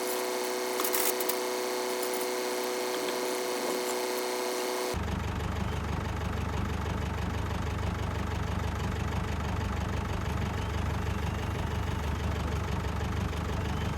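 Old tractor engine running steadily at idle. For about the first five seconds the sound is thin, with a steady whine and no low end; it then changes abruptly to the engine's full low, even running.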